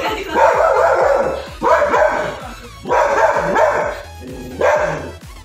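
A dog barking repeatedly in short runs, about four bouts, with music playing underneath.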